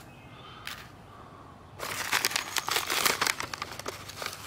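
Potato flake package crinkling and crackling as it is handled: a dense run of crackles starts about two seconds in and lasts a couple of seconds, after a quieter start with one soft tap.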